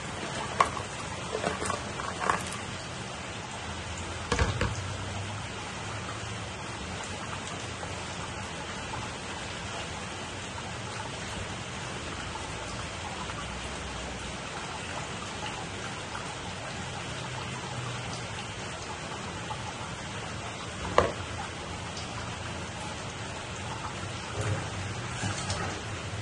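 Pan of crab broth boiling, a steady bubbling hiss. A few sharp clinks and knocks in the first few seconds as the crabs are tipped in, and one more knock later.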